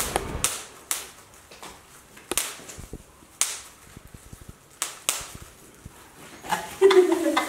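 Bubble wrap being popped by hand: sharp single pops at irregular intervals, about five loud ones and several fainter ones, with light crinkling of the plastic between them.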